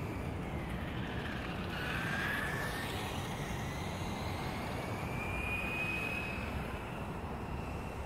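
Electric RC motorcycle's motor whining as it rides around. The pitch rises and falls with speed, climbing about two seconds in and again around five seconds in, over steady outdoor background noise.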